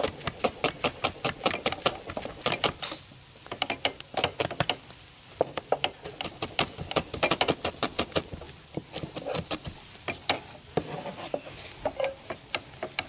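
Knife chopping shallots on a cutting board: a run of quick, sharp taps, several a second, with short pauses between runs.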